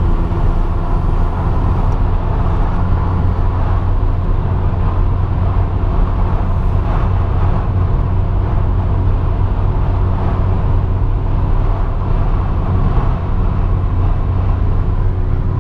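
Steady in-cabin road noise from a car driving along: a constant low rumble of engine and tyres with a steady hum underneath.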